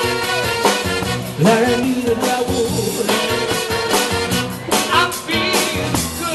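A live band playing upbeat music on drum kit and keyboard, with a saxophone coming in near the end.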